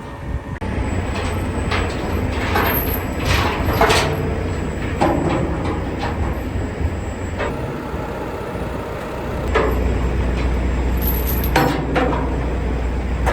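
Heavy machinery engine running steadily, louder from about two-thirds of the way in, with several sharp metallic squeals and clanks on top.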